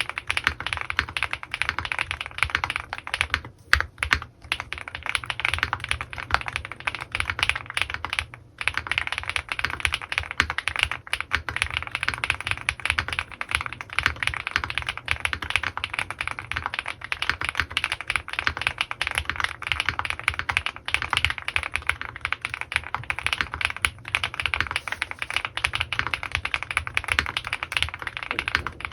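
Fast, continuous typing on an Owlab Mr.Suit custom mechanical keyboard with lubed Gateron Pure Berry switches and GMK keycaps, with two brief pauses near the start.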